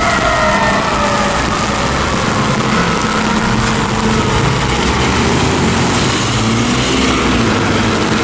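1996 KME fire engine pulling away on a wet road: its diesel engine runs under load with a steady hiss of tyre spray, while a siren winds down over the first second or so.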